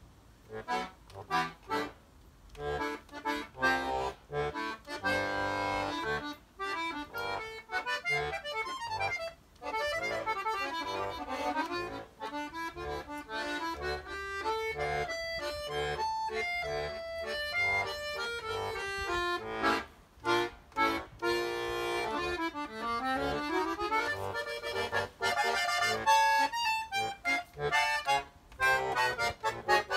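Solo accordion playing a free-flowing melody with quick runs and held chords, with short, choppy chords near the start and a rapid string of clipped chords near the end.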